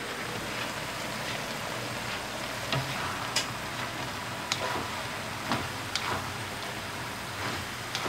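Sliced bottle gourd sizzling in oil in a wok, with a spatula scraping and knocking against the wok several times from about three seconds in as the vegetables are stirred.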